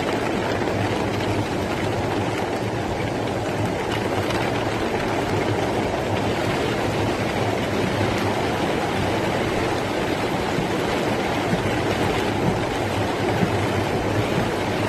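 Steady rushing of storm rainwater pouring down a street during a cloudburst, with a low hum underneath.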